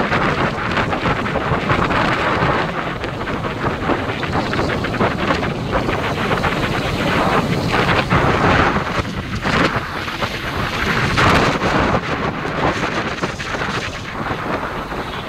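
Wind buffeting the microphone of a motorcycle riding at speed: a loud, uneven rush that swells and dips.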